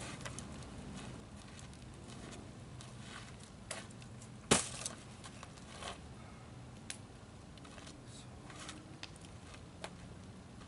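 Sparse knocks and clicks of someone handling wood and stepping about at a log wall, the loudest a single sharp knock about four and a half seconds in, over a faint steady background hum.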